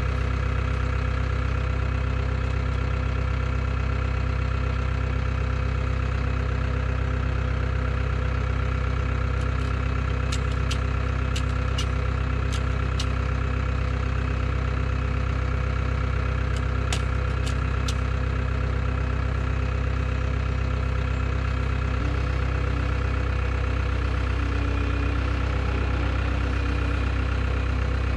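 Cat skid steer loader's diesel engine idling steadily, with a few sharp clicks in two short clusters around the middle. Near the end the engine note changes as the machine is driven a short way.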